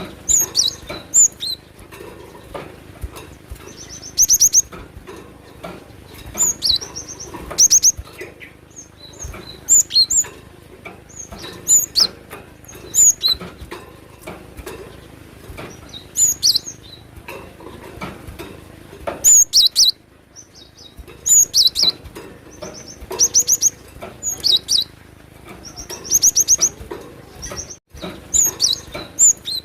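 Cinereous tit (glatik batu) singing excitedly: short bursts of rapid, high, metallic notes repeated every second or two.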